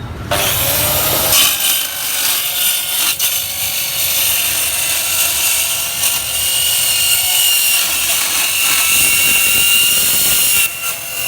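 Handheld slow-speed metal-cutting saw with a carbide-tipped blade cutting through 3 mm steel sheet: a steady hissing grind with a high ringing whine. It runs for about ten seconds and stops shortly before the end.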